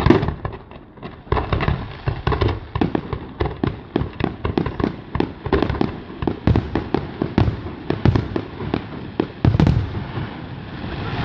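Fireworks display: a rapid barrage of shell bursts and crackling reports, several bangs a second, with a heavier cluster of booms near the end.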